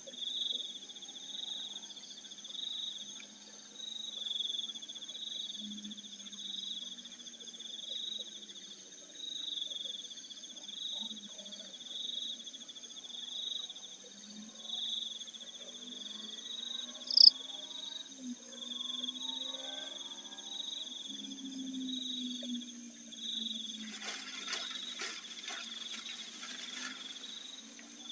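Crickets chirping in an even pulse, about once a second, over a steady high insect drone, with lower wavering calls underneath. A single brief, sharp high squeak stands out about seventeen seconds in, and a patch of crackling comes near the end.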